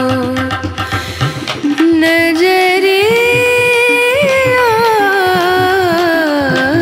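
Background music: an Indian-style song with a long held melody line that rises and then glides slowly down in pitch, over repeated drum beats.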